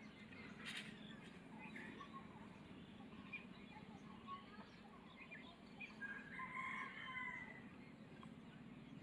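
A rooster crows faintly about six seconds in, over a low steady hum. Small faint ticks come from a screwdriver undoing the screws of a phone's board cover.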